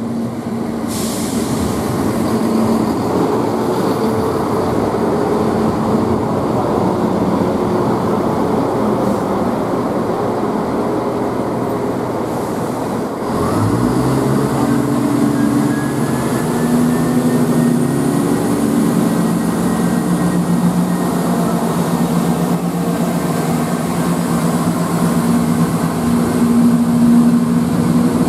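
Class 170 Turbostar diesel multiple unit running at the platform with its underfloor diesel engines ticking over, with a short hiss about a second in. About halfway through the engines throttle up with a rising note as the train pulls away, and the raised engine note holds steady as it accelerates.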